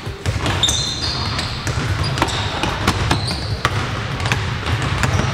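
Basketballs bouncing on a hardwood gym floor during a pickup game, many sharp thuds at irregular times, with short high sneaker squeaks about a second in and again around three seconds in, over a steady low hum.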